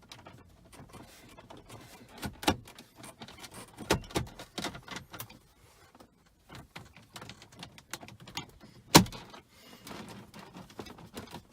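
Plastic center dashboard bezel of a 2005 Chrysler 300 being pressed back into the dash by hand: a scattered series of plastic clicks and knocks as its clips snap into place, the loudest about nine seconds in.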